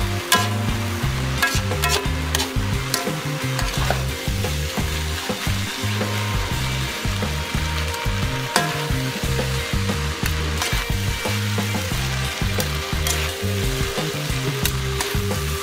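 Fried noodles with beef and greens sizzling in a metal wok as they are stir-fried and lifted, with frequent sharp clicks and scrapes of the utensil against the wok and a low rumble underneath.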